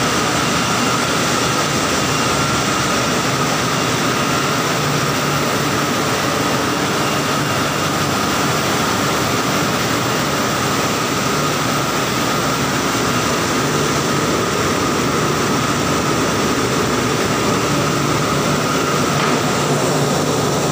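Industrial banana washing machine running: water jets hissing onto bunches of bananas, over the steady drone of its pumps and conveyor motors, with a constant whine near the top.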